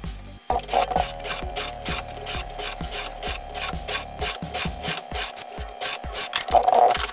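A metal scriber scratching along a metal sheet, drawn against a straightedge to mark cutting lines, in repeated strokes, with background music playing.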